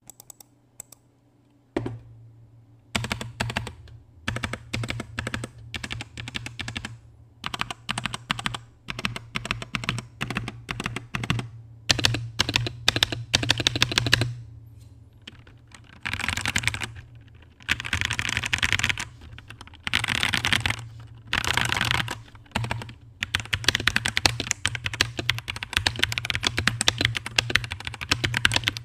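Typing on a Zifriend ZA63 Pro mechanical keyboard: dense key clicks starting about two seconds in, with short bursts of very fast typing in the second half.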